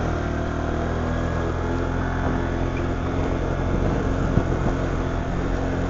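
Arctic Cat 300 ATV's single-cylinder four-stroke engine running at a steady speed, its pitch holding level while riding.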